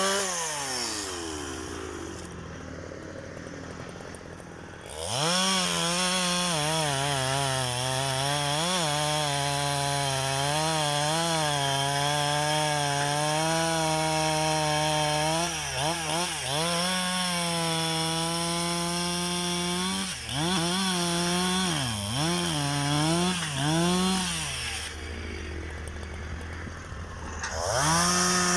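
Hitachi EX200-1 hydraulic excavator's diesel engine working under load, its pitch rising and sagging over and over as the hydraulics are worked. It drops to a quieter, lower pitch twice, about two seconds in and again near the end, before picking up again.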